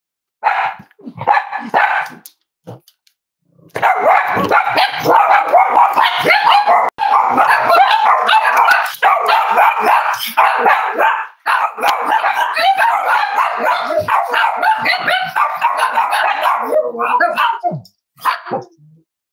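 Several Cavalier King Charles spaniels barking. A few single barks come first, then a dense stretch of overlapping barking from about four seconds in, thinning to a few separate barks near the end.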